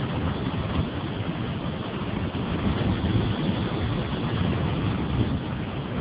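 Steady rumble of a vehicle driving along a road, with wind buffeting the microphone mounted on its body.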